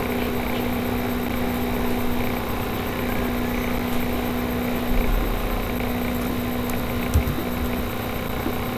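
Steady background hum and noise from an open microphone, with a few faint clicks and a short low thump about seven seconds in.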